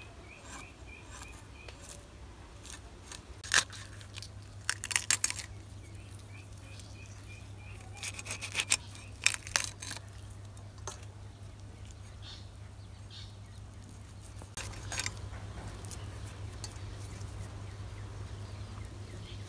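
A fish being scaled and cut against a boti's fixed curved blade: short, sharp scraping strokes in a few bursts. A small bird chirps a quick run of repeated high notes at the start and again about six seconds in.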